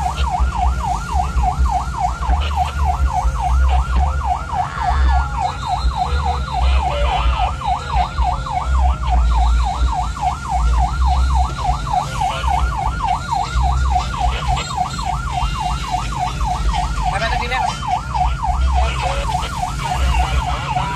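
Ambulance siren on its fast yelp setting, a rapid up-and-down wail repeating several times a second without a break, heard from inside the cab over a steady low engine and road rumble.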